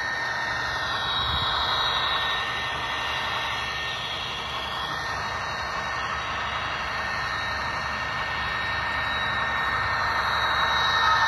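Onboard sound decoder of an HO scale CSX SD70MAC model locomotive, playing an EMD diesel prime mover running steadily through its small speaker. It grows louder near the end as the locomotive comes close.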